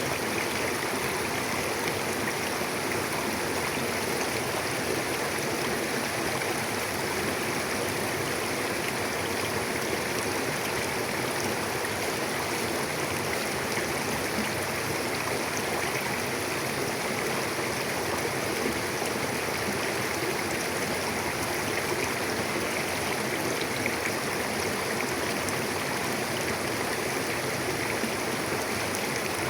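Mountain river flowing over rocks: a steady, unbroken rushing of water.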